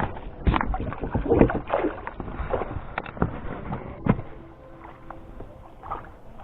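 Irregular knocks and splashy, rustling handling noises in a small boat, busiest in the first four seconds and then quieter.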